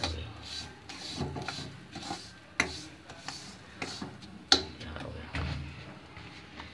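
A utensil stirring and scraping a thick ghee, roasted gram and poppy-seed mixture around a kadhai in repeated strokes, with a few sharp knocks against the pan, the loudest about four and a half seconds in.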